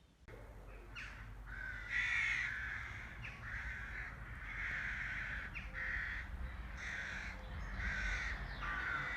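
Crows cawing: repeated harsh caws, roughly one a second, over a steady low rumble.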